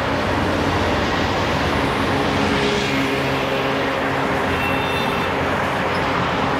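Road traffic noise: vehicles running past, with a steadier engine hum from a vehicle close by for a few seconds from about two seconds in.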